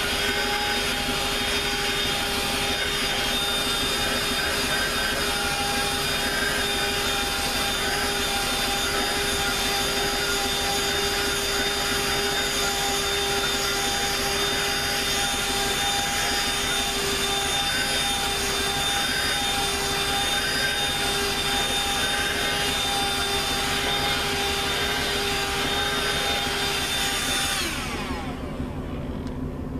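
Dirt Devil Quick Flip Pro cordless handheld vacuum running steadily on its bare suction nozzle, without the powered brush, as it is drawn over a carpeted dash mat: a steady motor whine over a rush of air. Near the end it is switched off and its whine falls away as the motor winds down.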